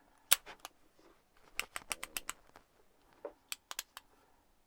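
A dozen or so sharp clicks and light taps in three loose clusters as the freshly reassembled Abus 72/40 padlock is handled.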